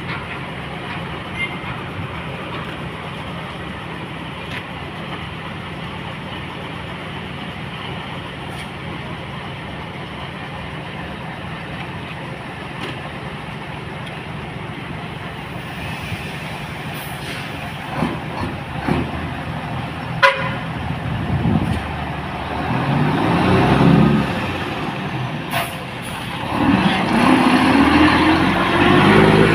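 Diesel truck engine running steadily, then revving up twice as a tractor unit pulls a container trailer away, the pitch climbing each time, with a sharp click or hiss in between.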